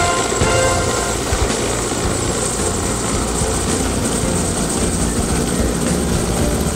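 Several Mi-8/Mi-17-family twin-turbine military helicopters flying over in formation, with the steady beat of their main rotors and the noise of their engines. Background music fades out in the first second.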